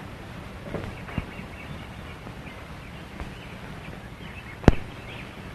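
Steady hiss and hum of an old optical film soundtrack, with faint high chirps like distant birds and a couple of soft knocks about a second in. One sharp, very short click comes near the end and is the loudest thing.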